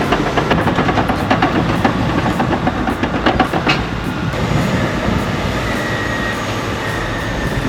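Heavy tracked earthmoving machine working, its engine running under rapid, irregular clanking of steel tracks. The clanking eases about halfway through to a steadier rumble with a faint high squeal.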